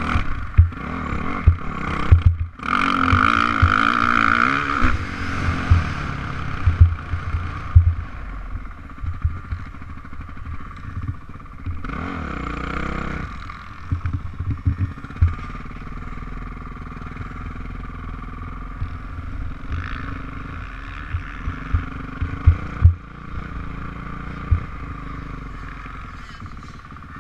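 Dirt bike engine running on a motocross track, heard from an onboard camera, its pitch rising and falling with the throttle. Frequent low thumps from wind and bumps hitting the microphone.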